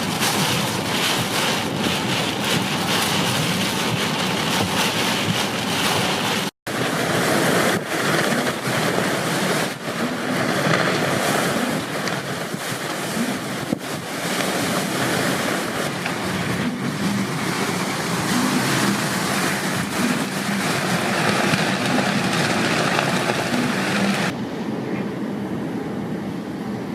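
Storm-force wind gusting hard across the microphone: a loud, rushing roar that rises and falls with the gusts. It cuts out for an instant about six and a half seconds in, and turns duller and a little quieter near the end.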